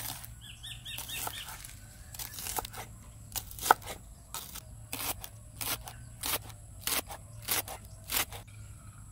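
Chef's knife chopping garlic cloves and green onions on a wooden cutting board: a series of sharp chops, irregular at first, then steadier at about two a second in the second half.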